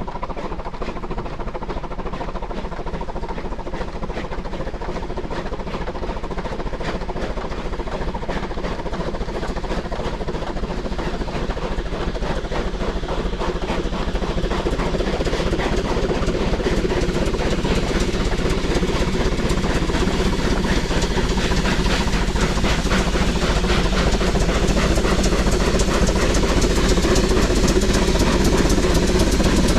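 Steam-powered rotary snowplough (the DFB's R12) working through deep snow, its steam-driven rotor and running gear making a steady mechanical clatter mixed with the rush of snow being thrown. It grows steadily louder as the plough approaches and passes close by.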